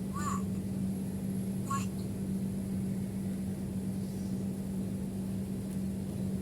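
A steady low hum over a soft background rumble, with two brief faint squeaks about a second and a half apart near the start.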